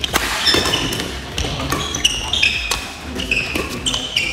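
Badminton doubles rally: racket strings striking the shuttlecock several times in quick exchanges, the first as a player jumps for a smash, with short high squeaks of court shoes on the wooden floor in between.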